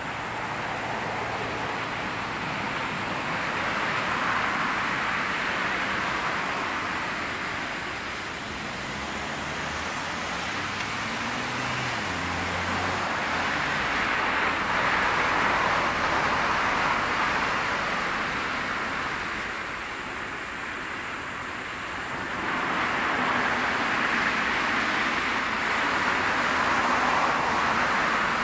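Boeing 747-400 freighter's four Rolls-Royce RB211 jet engines running on the landing rollout: a continuous rushing jet noise that swells and fades in three broad waves, about four seconds in, mid-way through and again near the end.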